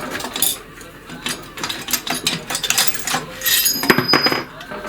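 Metal parts of a walk-behind tractor engine clinking and clattering as its cylinder head is taken off and handled on the bench: a run of sharp clinks, the loudest cluster a little before the end, one with a brief metallic ring.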